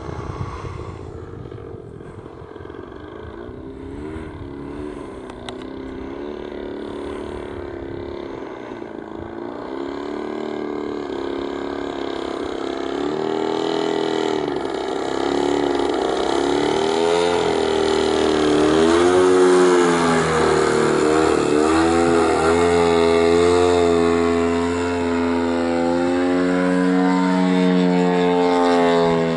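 Engine and propeller of a radio-controlled Yak model aerobatic plane in flight overhead, its pitch rising and falling over and over with throttle and manoeuvres. It is fainter at first and grows louder over the second half.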